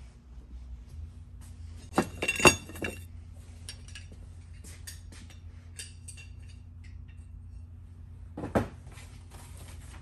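Metal parts and tools clinking and clattering on a workbench as they are handled: a loud cluster of ringing knocks about two seconds in, small clicks after, and another knock near the end, over a steady low shop hum.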